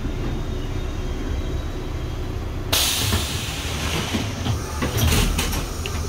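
Metra commuter coach vestibule door opening: a low rumble from the car, then about three seconds in a sudden loud hiss that fades, followed by a few clunks and knocks as the door slides open.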